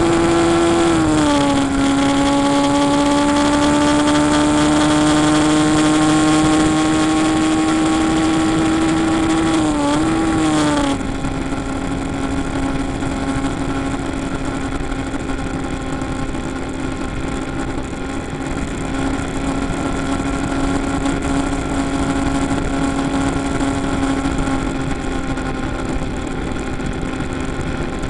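Suzuki RV125 VanVan's single-cylinder four-stroke engine running as the bike rides along. Its pitch drops about a second in and then climbs slowly; after a brief wobble near ten seconds it runs quieter and steadier.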